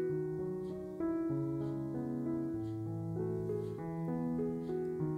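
Background piano music: a gentle melody of changing notes over held lower notes.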